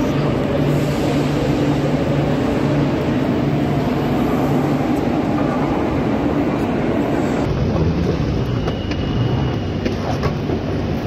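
Madrid Metro train running along the platform, its motors giving a steady pitched hum that pulses slightly. About seven and a half seconds in this gives way to quieter station ambience, with a brief high tone and a few light clicks.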